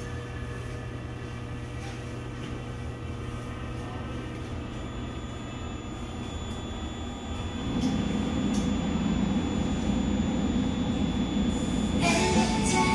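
Steady running noise inside a Seoul Subway Line 4 electric train car: a low rumble with a few faint steady whining tones. A low hum drops out about seven seconds in, and the rumble grows louder just after. Near the end a melody starts.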